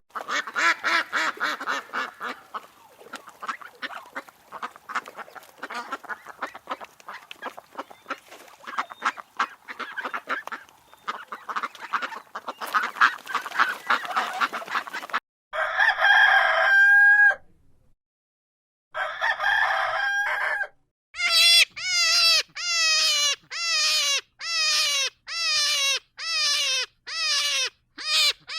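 Farmyard poultry calling: a flock clucking and squawking rapidly for about fifteen seconds, then two longer calls, then a run of evenly spaced calls that fall in pitch, a little more than one a second.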